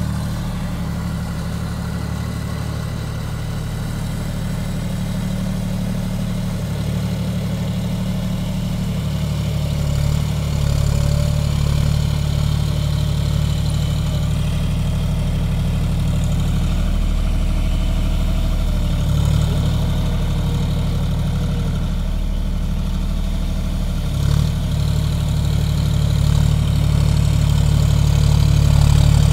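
John Deere four-wheel-drive tractor's diesel engine running steadily under load, pulling an implement through deep mud. It grows gradually louder near the end as the tractor comes closer.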